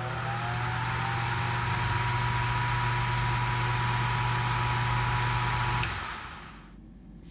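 Electric fan motor finishing its startup: a whine that rises in pitch and settles into a steady tone about a second in, over a steady low hum and a broad rushing noise. The sound cuts off abruptly near the end.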